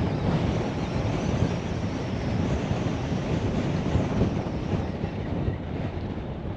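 Steady wind buffeting the camera's microphone, a low rumbling rush, with small waves lapping on choppy water.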